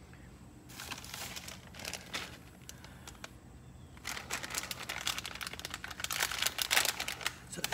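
A crinkly plastic snack bag being handled, crackling in short bursts about a second in, then more densely and louder from about four seconds in.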